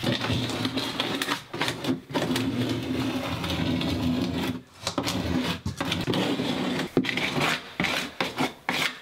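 Putty knife scraping and rubbing across cement backer board in irregular back-and-forth strokes, spreading sealant into the gaps between board and niche, with a few short pauses.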